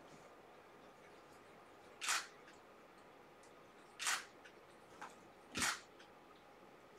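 DSLR camera shutter firing three single shots, roughly two seconds apart, with a fainter click shortly before the last shot.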